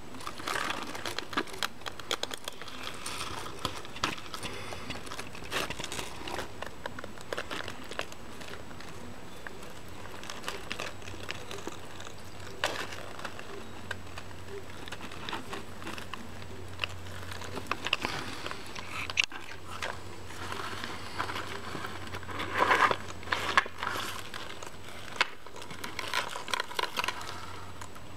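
Baby tortoises shuffling on cardboard strewn with dry hay: scattered rustling, crinkling and small scratches and clicks, with a louder crackling rustle about three quarters of the way through.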